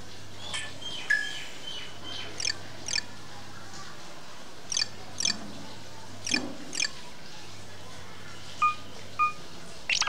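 Nothing Phone 1's built-in notification tones previewing through its speaker: short electronic chirps and beeps, mostly two notes about half a second apart, a different tone every second or two as each one is selected.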